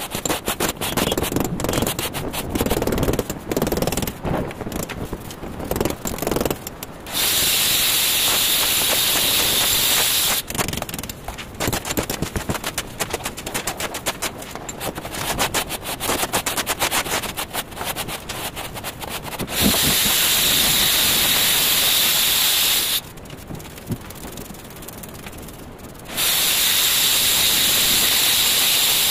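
Gritty scraping and rubbing of a trowel, hands and straight-edge over a loose sand-cement mortar bed laid for floor tiles. It is broken three times by stretches of loud steady hiss that start and stop abruptly.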